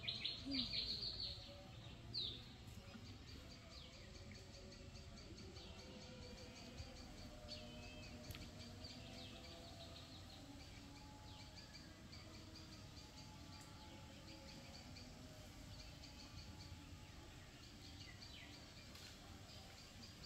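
Birds chirping: a louder run of quick, high chirps in the first second or two, then faint, scattered high calls over quiet outdoor background noise.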